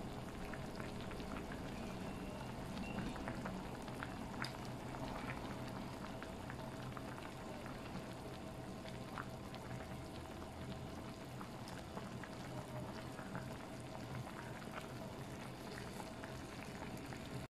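Pot of kimchi nabe broth with vegetables boiling steadily, a constant bubbling with many small pops. A faint steady hum runs underneath.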